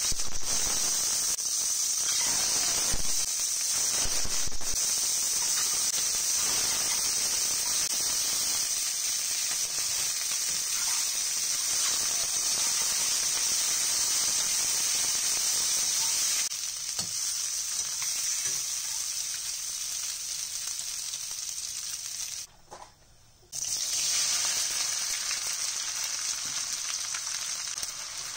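Peeled hard-boiled eggs frying in hot oil in a stainless steel pan: a steady sizzle with a few knocks of a metal utensil turning them. After a short break near the end, sliced onions sizzle in the pan.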